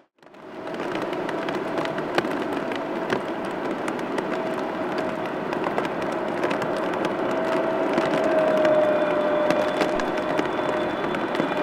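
Boeing 777 with GE90 jet engines on final approach: a steady rushing jet drone with a held whine, fading in from silence at the start and loudest about eight to nine seconds in, with many small ticks over it.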